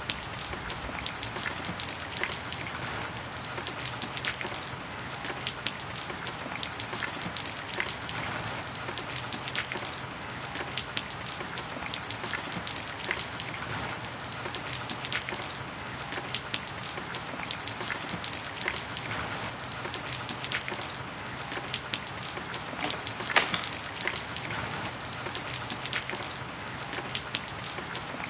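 Steady rain, with many individual drops striking close by as sharp ticks.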